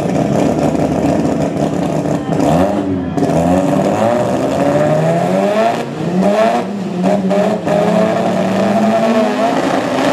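Two drag-race cars, one of them a turbocharged Toyota 3RZ four-cylinder, revving on the start line as they stage and build boost for the launch. The engine pitch climbs, falls and climbs again, with a few brief cut-outs in the second half.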